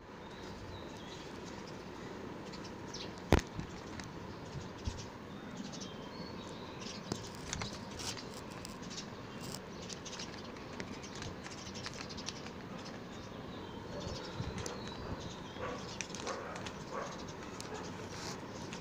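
Crinkling and rustling of a plastic KitKat snack pouch shaken in the hand, made up of many short scattered crackles, with one much louder sharp click about three seconds in.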